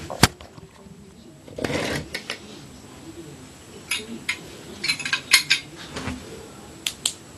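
Metal elevator fixture parts clinking and clicking as they are handled. There is a sharp click just after the start, a short rattle about two seconds in, and a scatter of clicks and clinks later on.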